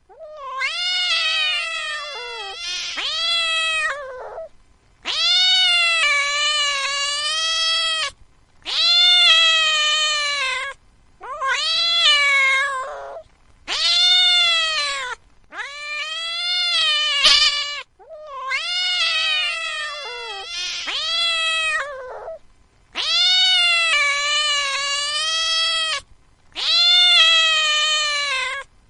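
Domestic cat yowling: about ten long, drawn-out meows in a row, each two to three seconds, rising and falling in pitch, with brief pauses between them.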